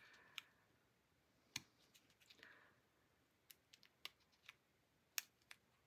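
Near silence with a few faint, scattered clicks and a soft rustle from small paper stickers being handled and positioned on a scrapbook page.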